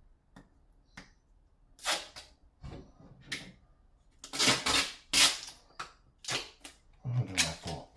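Duct tape being pulled off the roll in a series of short rips, with small clicks and knocks between.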